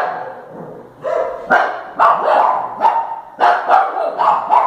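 A dog barking repeatedly, a run of sharp barks at about two a second.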